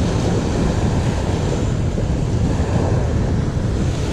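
Small waves breaking and washing up a sandy beach, with wind buffeting the microphone in a steady low rumble.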